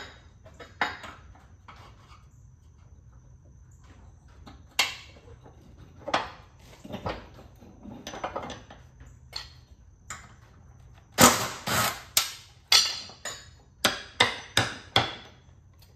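Hammer blows driving a stuck blade spindle out through the top of a John Deere 318 mower deck hub: a few scattered knocks at first, then a quick run of about ten hard strikes over the last five seconds.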